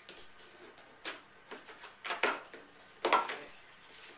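Cardboard box being opened by hand: a few short rustling scrapes as the lid and flaps are pulled open and the inner box is drawn out. The loudest comes a little after three seconds in.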